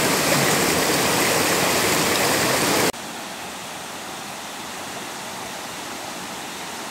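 Rushing water of a rocky jungle stream and its small waterfalls, a steady even rush that drops suddenly to a quieter level about three seconds in.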